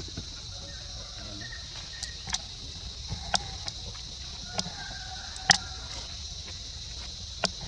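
Steady high-pitched insect chorus, with a few sharp clicks and taps scattered through it and faint short chirps in the middle.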